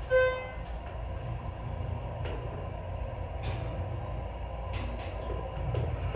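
Schindler 330A hydraulic elevator cab riding with its doors shut: a steady low rumble with a faint steady hum throughout, a short electronic beep right at the start, and a few faint clicks and knocks.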